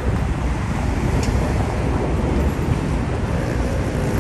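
Steady low rumble of road traffic on a city street, with a faint engine hum coming in near the end.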